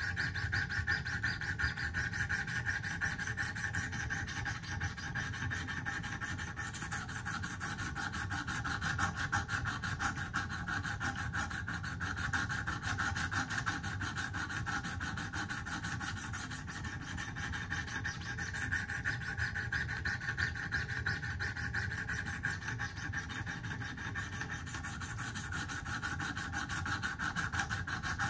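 Wicked Edge guided-sharpener stones rubbing in steady, repeated strokes along a steel pocket-knife blade. The stones are grinding the bevel on a chipped, recurved edge, working out the damage and raising a burr.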